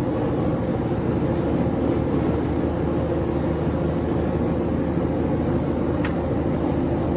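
Boat engine running steadily with a constant low drone, and a single short click about six seconds in.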